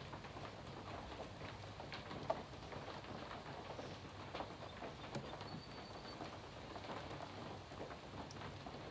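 Triangular trimming tool twisting and scraping into a clay candlestick to hollow out its stem: a faint, irregular scratchy crackle of clay being shaved away, with one sharper click about two seconds in.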